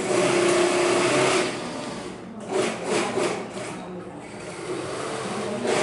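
JUKI industrial sewing machine stitching in short runs: one longer run with a steady motor tone at the start, then a few brief bursts of stitching about two and a half to three and a half seconds in.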